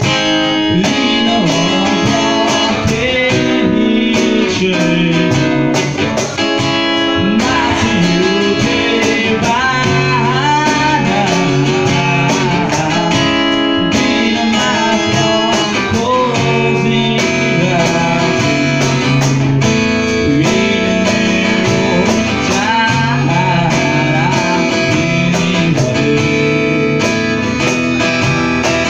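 Live acoustic guitar strummed under a man's sung melody, with a cajon keeping a steady beat.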